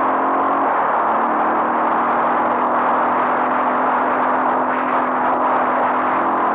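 Enduro dirt bike engine running at a steady pace while the bike is ridden along a dirt track, mixed with a dense, steady rush of wind noise on the microphone. A single faint click comes about five seconds in.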